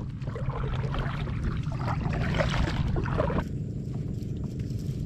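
Kayak paddle dipping and splashing through the water, with water running off the blade. About three and a half seconds in the sound cuts abruptly to a steady low rumble.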